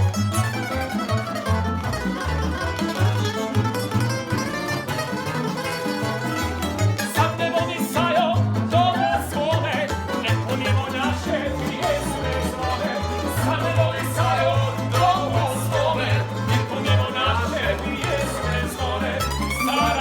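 Croatian tamburitza ensemble playing live: plucked string instruments carrying a wavering melody over a steady bass line, growing fuller about a third of the way in.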